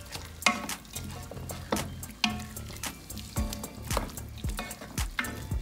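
A spoon stirring chicken, bell peppers and onions in a metal pot, knocking against the pot about twice a second with a short metallic ring after several of the knocks.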